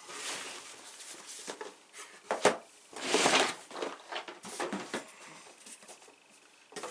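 Cardboard board-game boxes being handled: a few sharp taps and knocks, the loudest about two and a half seconds in, followed by a short rustling slide of cardboard.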